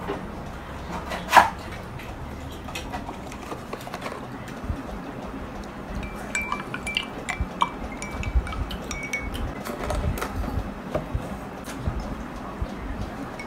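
Cutlery and dishes clinking at a meal table, with one sharp clink about a second and a half in, and milk being poured from a carton into a glass.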